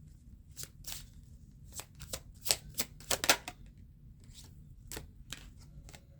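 Tarot cards being handled: a string of about a dozen irregular sharp card snaps and taps, thickest in the first half, with a couple more about five seconds in.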